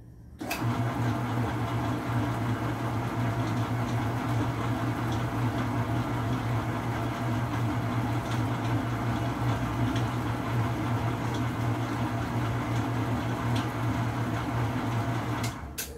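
Commercial stand mixer switched on about half a second in, its motor and beater running in a stainless steel bowl with a steady low hum, then switched off shortly before the end.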